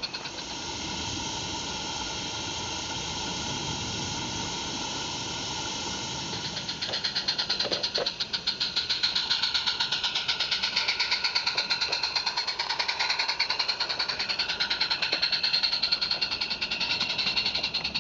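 Roundhouse Jack 0-4-0 live-steam garden-railway locomotive running past with a steady hiss at first. From about seven seconds in comes a fast, even chuffing of exhaust beats, with a few clicks of small wheels on the rail.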